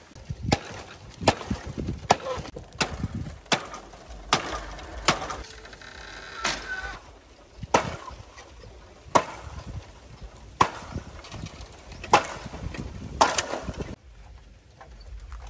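An axe chopping into a standing bamboo stalk: about a dozen sharp woody strikes, about one a second at first, then a short pause and further strikes spaced more widely.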